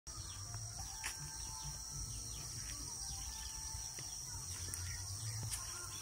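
Steady high-pitched chorus of insects, with many small bird chirps scattered through it and a low rumble underneath.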